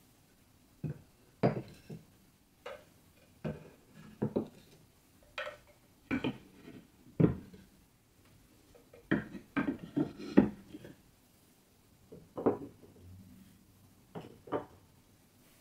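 Wooden marble-run blocks and grooved slope boards being set down one by one on a tabletop and against each other: a string of irregular, sharp wooden clacks, bunched more quickly together a little past halfway.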